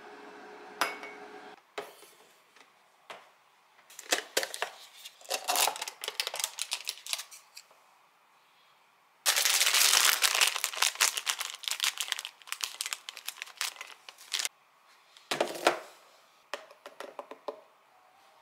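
Food-prep handling sounds: a metal spoon tapping and scraping in a glass dessert cup of yogurt, with several seconds of loud packaging rustle about halfway through as toppings are added.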